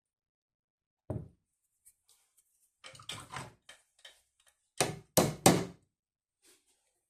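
A series of knocks and clatters: one knock about a second in, a short clattering run around three seconds, then three louder knocks close together near five seconds.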